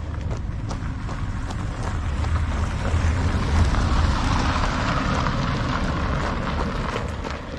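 A road vehicle passing the runner, its noise swelling to a peak about halfway through and fading again over several seconds, over the runner's steady footsteps.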